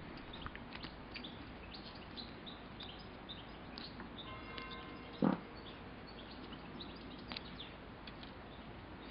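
Faint outdoor background of small birds chirping on and off, with one brief dull knock about five seconds in.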